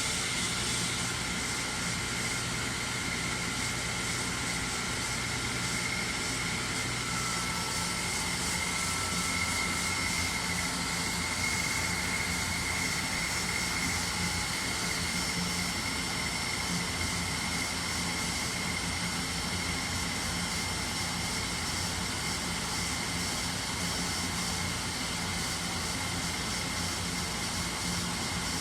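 Nakamura-Tome Super NTM3 CNC turning center running a machining program: a steady mechanical hum and rush of noise, with a high whine held throughout.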